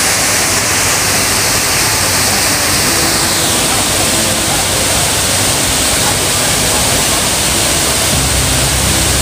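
Water pouring down an artificial waterfall in a thin curtain over a wall, a steady, even rush of splashing water.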